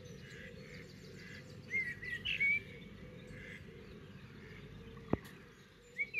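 Small songbirds singing in short, warbling chirpy phrases, a burst about two seconds in and another near the end, over a steady low background rumble. A single sharp click sounds about five seconds in.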